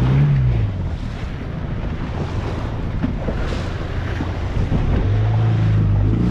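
Outboard motor running on a boat under way, over rushing water and wind buffeting the microphone; the engine note dips near the start and climbs again from about five seconds in.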